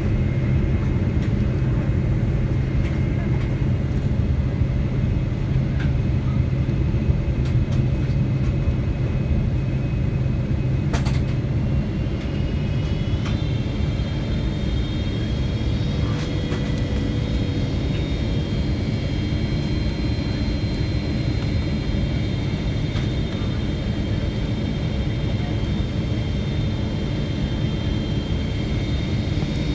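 Steady cabin noise of a Boeing 777-200LR on approach, heard from inside the cabin: the rush of the airframe and the hum of its GE90 engines. About twelve seconds in, a low hum drops away and a high whine of several tones rises in and then holds steady. There is a single click about eleven seconds in.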